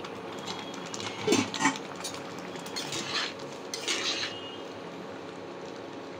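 Metal spatula stirring thick, freshly boiled lentil dal with cabbage in a kadai, scraping and clinking against the pan in a few short bursts, the last about four seconds in.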